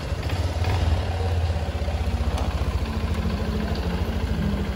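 The air-cooled single-cylinder four-stroke engine of a new Honda CRF150L dirt bike idling steadily, with an even, rapid pulse.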